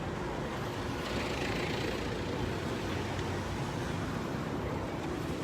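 Steady motor vehicle noise: a constant engine hum with road noise.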